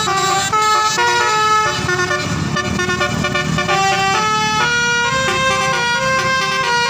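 Bus telolet horn playing a quick melody of stepped notes, several tones sounding together, over the rumble of the bus engine.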